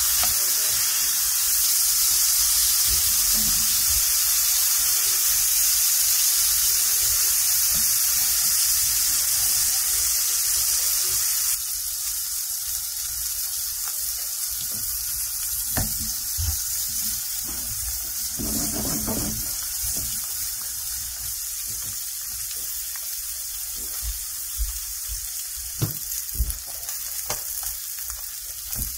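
Swai fish fillets frying in olive oil and butter in a skillet: a steady sizzle that steps down to a quieter level about a third of the way through, with a few light clicks near the end.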